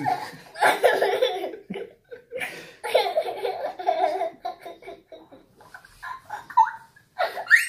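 A young boy laughing hard in bursts with short breaks, ending in a rising squeal.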